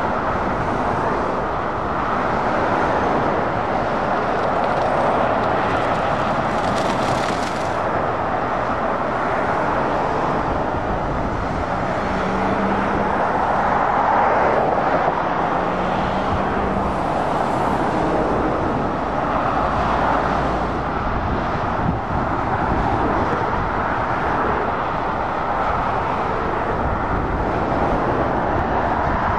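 Steady traffic noise from lorries and cars passing on a main road, mostly tyre roar on the road surface, with a low engine hum coming through midway.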